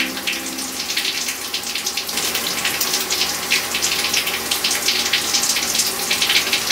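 Water splashing and trickling in a small basin as a wet puppy's face is washed by hand, with many small irregular splashes.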